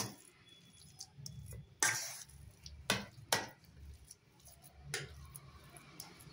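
Steel spoon stirring a thick mashed fish-and-potato filling in a stainless steel bowl. The spoon scrapes through the mixture, with several sharp clinks against the bowl, the loudest about two and three seconds in.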